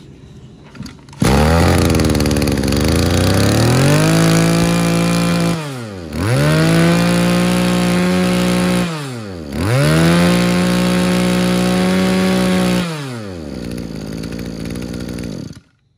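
Mitsubishi TB26 26cc two-stroke brush cutter engine starting about a second in and idling briefly. It is then revved to full throttle three times, each held for a few seconds before dropping back to idle, and shuts off near the end.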